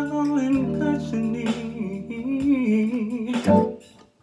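A man singing a slow, wavering melody line into a microphone over acoustic guitar accompaniment; the sound briefly drops out near the end.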